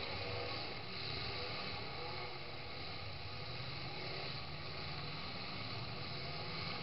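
Engines of several demolition derby trucks running together as a steady drone, with no crash or impact standing out.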